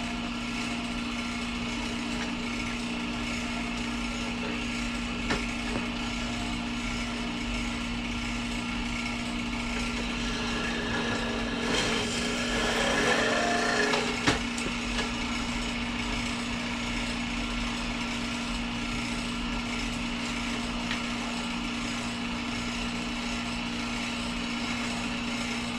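Steady hum of a running shop motor, with a few short metallic knocks from a foot-operated brake-rivet machine setting rivets through a clutch lining into its steel plate. A louder rasping stretch comes about halfway through.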